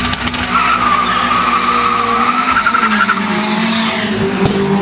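Drag race cars launching: engines held at high revs with a wavering tyre squeal, then a car rushing past about three and a half seconds in.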